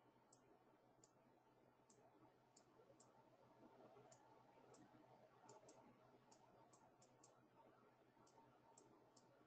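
Near silence: faint room tone with small, irregularly spaced clicks.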